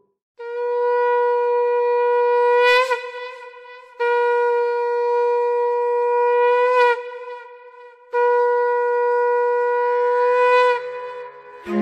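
A conch shell (shankha) blown three times, each blast a long, steady note of about three seconds that swells and bends upward in pitch at its end. Three blasts of the conch are the traditional auspicious call that opens Durga worship.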